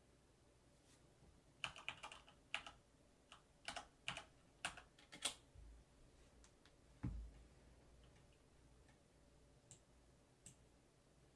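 Typing on a backlit mechanical computer keyboard: a quick run of about a dozen keystrokes in the first half, a single lower thump about seven seconds in, then a couple of faint key clicks near the end.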